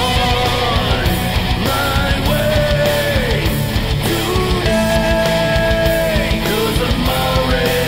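Modern hard rock music, instrumental: an electric guitar lead playing held notes that bend and slide in pitch over dense drums and bass.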